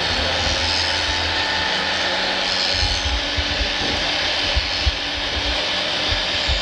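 Hydraulic radio-controlled scale construction machines working, a steady mechanical whir and hiss with irregular low rumbling, and a few sharp knocks about four and a half to five seconds in.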